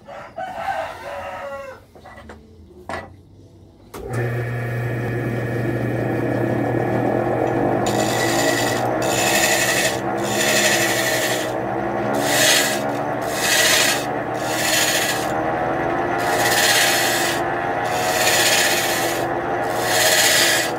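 An electric wood lathe switches on about four seconds in and runs with a steady hum. From about eight seconds, a hand-held turning gouge cuts the spinning log in repeated passes, each a hiss of shavings lasting about a second.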